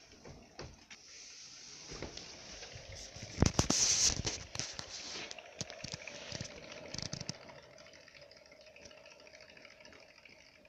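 A Syrian hamster's paws tapping on the cork running surface of a ball-bearing wooden exercise wheel, as quick irregular pattering. The wheel itself is nearly silent. A cluster of louder knocks comes about three and a half seconds in.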